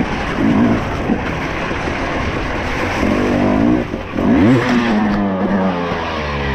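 Enduro dirt bike engine revving hard under riding load, heard from an on-bike camera with a constant rush of wind and track noise. The revs climb sharply about four seconds in, then fall away near the end as the bike goes over.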